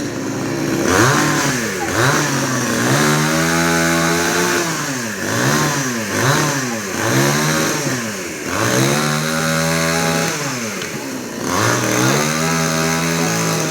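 Two-stroke chainsaw engine revving, its pitch rising and falling again and again every second or two.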